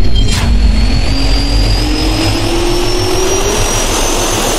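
Jet-turbine spin-up sound effect: a whine rising slowly in pitch over rushing air and a fading low rumble, with a short swish just after the start.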